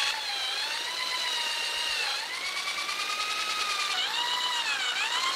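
Power drill spinning an aluminium bicycle seatpost chucked in it while 1500-grit sandpaper is held against the post: a steady motor whine that wavers in pitch, dipping briefly about two seconds in and again about four seconds in, over a sanding hiss.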